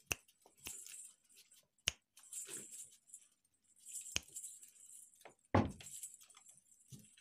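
Pomeranian puppy tugging and chewing at a dark cloth: fabric rustling, a few sharp clicks, and one louder thump about five and a half seconds in.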